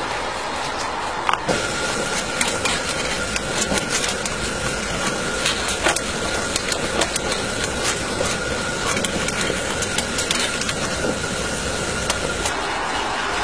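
Coal-fired miniature live-steam locomotive standing with its fire burning: a steady hiss with many small irregular clicks and crackles. After a click about a second and a half in, a thin steady whistling tone sets in and fades out near the end.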